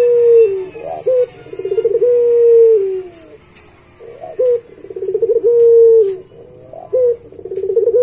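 Puter pelung dove cooing in repeated phrases: each a short rising note, a fast rolling stutter, then a long held coo that drops in pitch at its end, sung about three times.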